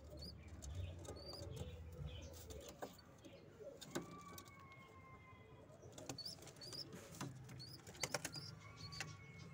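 Faint pigeon sounds in a loft: a low murmur for the first few seconds, thin high chirps scattered throughout, and two long, gently falling whistled tones. A few sharp clicks come about eight seconds in.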